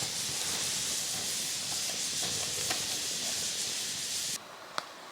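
Steady hissing sizzle of food cooking over a camp stove, with a couple of light clicks; it cuts off suddenly about four seconds in.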